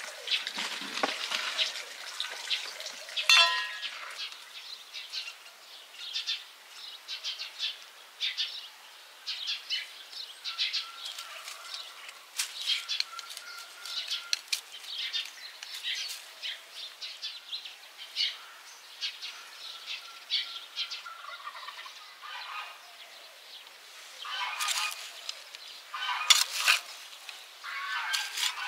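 Birds chirping and calling throughout, with a few short whistled notes. Near the end come louder scraping sounds, a hand trowel digging into soil.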